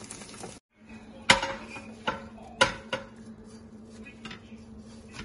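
A frying pan and plastic spatula knocking and clattering as an omelette is slid from the pan onto a plate: several sharp knocks, the loudest about a second in.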